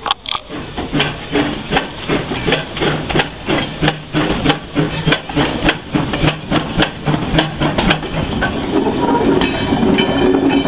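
Small steam tank locomotive working, its exhaust chuffing in a steady beat of about three a second. After about eight seconds the separate chuffs give way to a steadier rumble as the engine and its brake van run past.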